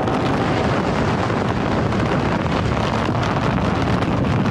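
Radio-play sound effect of a hurricane-force storm: a steady rush of wind with a deep rumble underneath.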